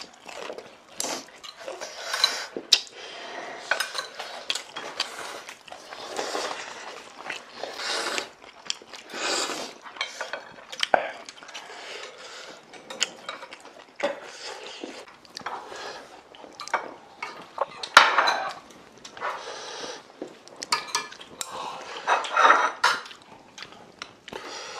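Eating utensils clinking and scraping against bowls and dishes, in many irregular short knocks and clinks; the sharpest clink comes about eighteen seconds in.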